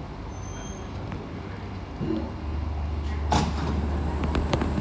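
Sliding passenger doors of an SMRT C151C electric train closing: a short burst of noise about three seconds in, then a few sharp clicks near the end, over the train's steady low hum.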